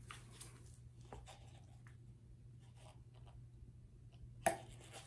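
Faint handling noise of a plastic squeeze bottle and cup as acrylic paint is squeezed into the cup: soft scattered ticks and rustles, with one sharper click about four and a half seconds in, over a low steady hum.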